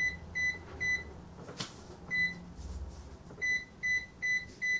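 Sam4S ER-900 series cash register keypad beeping once for each number key pressed. Short, identical high beeps: three in quick succession, one alone about two seconds in, then four more near the end.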